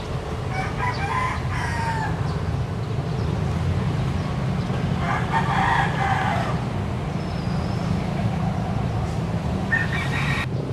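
A rooster crowing three times, about four seconds apart, the last crow cut short, over a steady low rumble.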